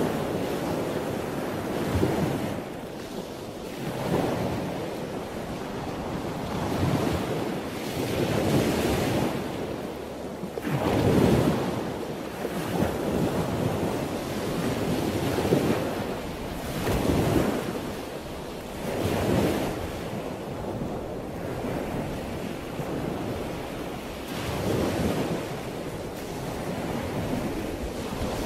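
Ocean surf washing in and drawing back, in irregular swells every two to three seconds.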